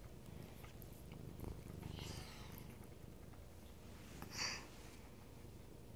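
Domestic cat purring faintly close to the microphone, the purr strongest about two seconds in, with one brief soft noise a little over four seconds in.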